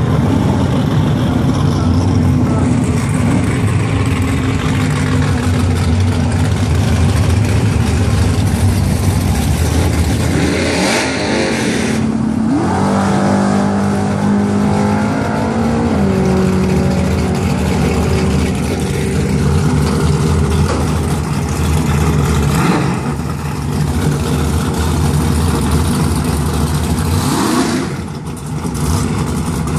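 First-generation Chevrolet Camaro drag car's engine running loud at the starting line, revving up about ten seconds in and holding a steady raised rev for a few seconds while staging.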